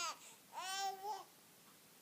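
Baby babbling: a short high-pitched vocal sound at the start, then a longer one about half a second in that lasts under a second.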